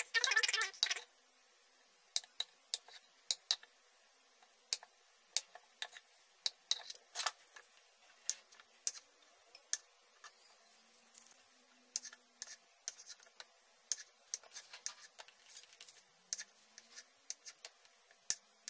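Kitchen knife cutting firm tofu on a wooden cutting board: irregular light taps and clicks of the blade meeting the board, with a louder, longer burst of noise in the first second.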